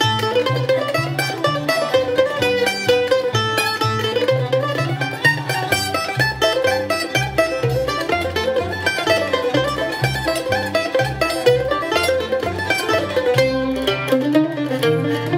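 Mandolin picking a quick melody of single notes, with a low bass part sounding under it.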